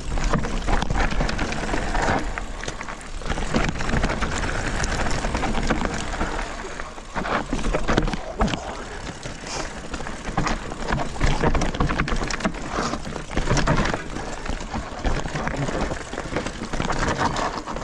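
Mountain bike descending a rough rocky trail: tyres crunching and skittering over loose stones, with the bike's frame and parts rattling and knocking at every rock.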